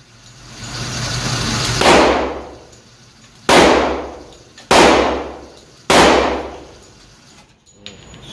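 Glock 40 long-slide 10mm pistol firing four shots, the last three about a second apart, each loud report ringing out in an indoor range booth.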